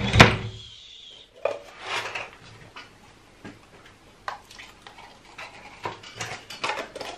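A short shushing hiss, then plastic cups and a slime tub handled on a tabletop: a scatter of light clicks, knocks and rubs as liquid is poured from a plastic cup into the tub.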